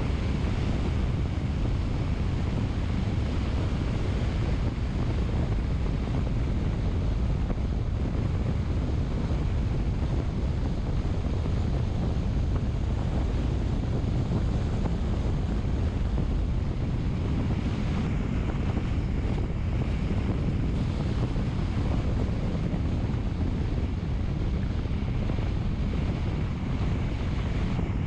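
Steady rushing wind noise on the microphone with a low rumble underneath, even throughout with no distinct events.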